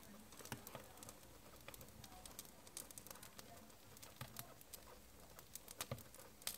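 Freshly lit wood fire crackling faintly in a tiled stove, with irregular small snaps and ticks.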